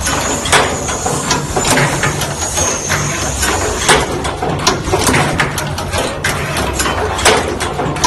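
Automatic plug insertion and crimping machine running: a steady low machine hum under frequent, irregular clacks and knocks from its pneumatic cylinders and crimping tooling. A faint high-pitched whine runs through about the first half.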